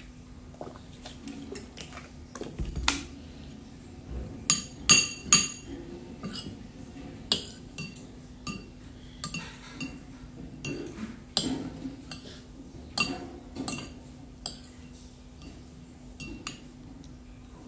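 Spoon and fork clinking and scraping against a plate while eating, in irregular taps with the loudest cluster about five seconds in. A steady low hum runs underneath.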